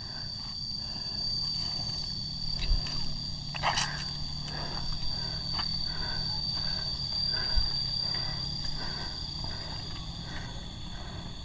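Rural outdoor ambience dominated by a steady, high-pitched insect drone, with a few faint scattered clicks.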